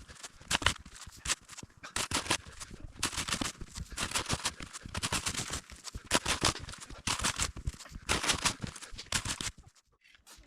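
Footsteps crunching through deep fresh snow, about two steps a second in a steady walking rhythm, stopping about nine and a half seconds in.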